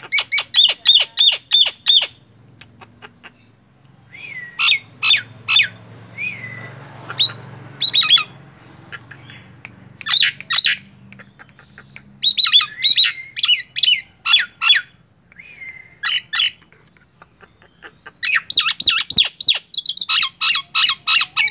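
Common myna calling: runs of rapid, sharp repeated notes, about eight a second, in bursts of one to three seconds, with a few short upslurred whistles between runs.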